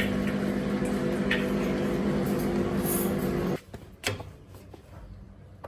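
A household appliance's motor humming steadily, then cutting off suddenly about three and a half seconds in, followed by a single click.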